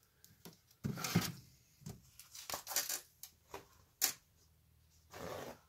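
Scattered light clicks and taps of a plastic model boxcar body shell and scrub brush being handled and set down on a ledge, the sharpest click about four seconds in.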